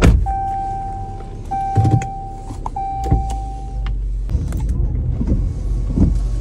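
Inside a Jeep's cabin: a steady electronic tone sounds in stretches of about a second for the first four seconds over a low hum, with several sharp knocks and clicks as the controls and gear selector are handled. From about four seconds in the low hum grows stronger.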